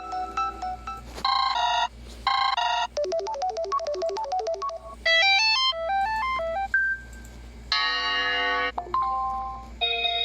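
Built-in ringtones of a UniPhone Shield X36 mobile phone played one after another: short electronic melodies and ring patterns, each lasting a second or two before the next one begins. One is a pair of chiming ring bursts, one a fast-pulsing tune, and another a stepping melody.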